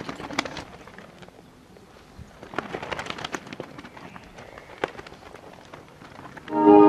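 Large cloth flags swishing and flapping as they are swung through the air, with scattered sharp clicks and knocks. About six and a half seconds in, a short, loud pitched sound cuts in, the loudest thing here.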